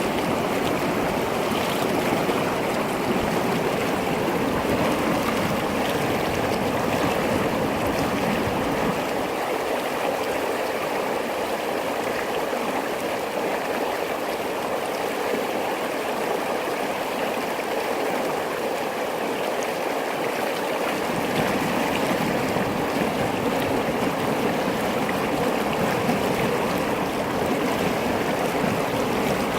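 Mountain stream rushing steadily over rocks, a continuous even wash of flowing water.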